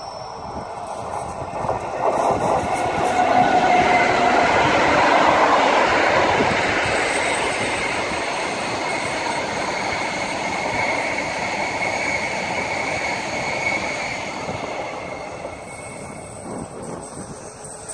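Rhaetian Railway metre-gauge electric train passing at close range. The rolling of wheels on rail swells to its loudest a few seconds in as the locomotive goes by, then the coaches roll past with a thin steady whine. The noise fades toward the end.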